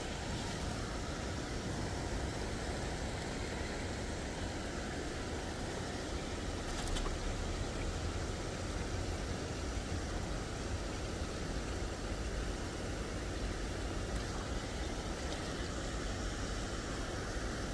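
Steady outdoor background rumble with a soft hiss and no pitched source in it; a single short click about seven seconds in.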